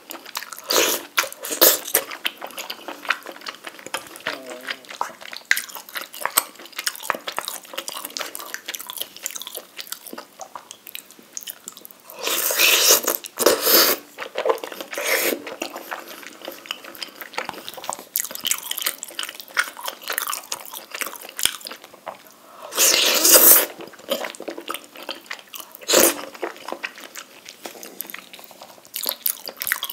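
Close-up eating sounds of rabokki (tteokbokki and ramen noodles in red sauce): wet chewing and smacking with small clicks throughout, and two louder, longer sounds about 12 and 23 seconds in.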